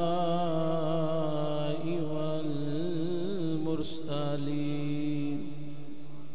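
A man chanting the Arabic opening praise of a sermon in a long, drawn-out melodic line, one held note that wavers in pitch midway and falls away near the end.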